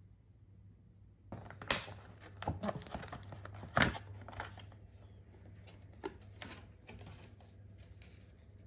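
Thin plastic food packaging being handled and opened by hand: a run of irregular crackles and clicks with two sharp snaps, about a second and a half in and again near four seconds in, fading out toward the end.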